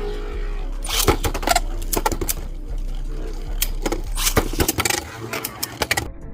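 Beyblade Burst QuadStrike tops battling in a stadium: a steady whirring hum of the spinning tops, broken from about a second in by a rapid run of sharp clicks and knocks as they clash.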